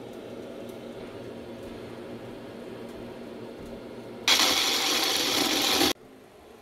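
A steady low hum, then about four seconds in a loud, even rushing noise that cuts off abruptly after about a second and a half.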